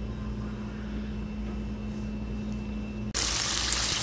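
A steady low hum, then about three seconds in a sudden cut to loud sizzling: breaded broast-style chicken pieces deep-frying in hot oil.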